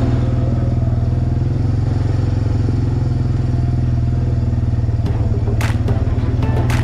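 Suzuki 400 ATV's single-cylinder four-stroke engine running steadily under way, with a few sharp clacks near the end.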